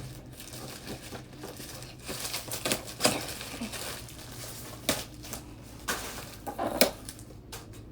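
Toy packaging being handled: crinkling and rustling of plastic bags and cardboard, with a few sharp clicks and taps.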